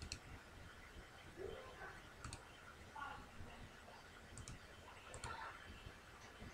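Faint computer mouse clicks over near-silent room tone: a few single clicks and a couple of quick double-clicks.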